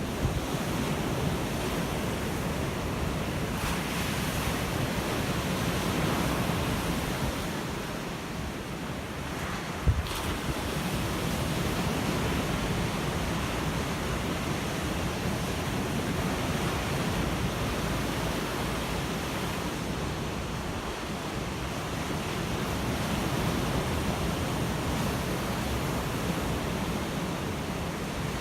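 Ocean surf washing on a shore: a steady rush of breaking waves that slowly swells and eases. A single sharp knock about ten seconds in is the loudest moment.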